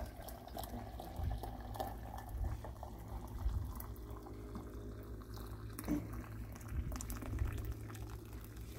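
Liquid bubbling at a low level, with small scattered clicks.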